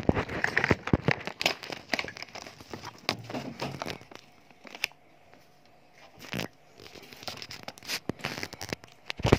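Close rustling, scraping and clicking of a phone being handled right at its microphone, busiest in the first few seconds. There is a knock about six seconds in and a louder one near the end.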